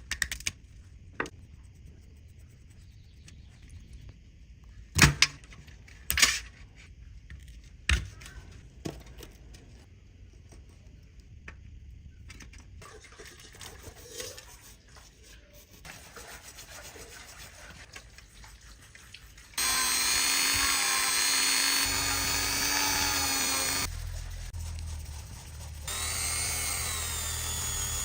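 A few sharp clicks and taps, then a small power tool, like a rotary tool, running steadily in two stretches of several seconds each, with a slight waver in its pitch, during the restoration of watch parts.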